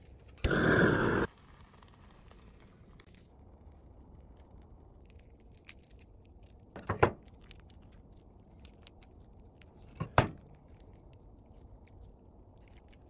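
Crisp skin of a grilled chicken crackling and tearing as the meat is pulled apart by hand, in two short bursts about three seconds apart. Near the start there is a louder burst of noise, under a second long, that begins and ends abruptly.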